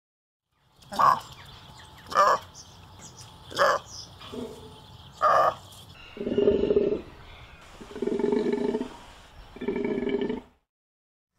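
Golden takin calling: four short, sharp calls about a second apart, then three longer, lower calls of about a second each.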